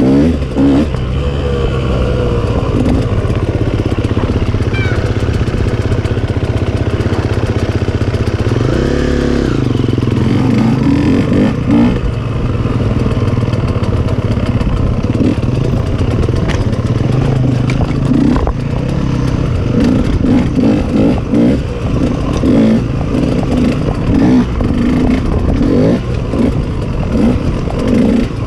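KTM off-road motorcycle engine running under changing throttle while riding, revving up and back down about nine seconds in.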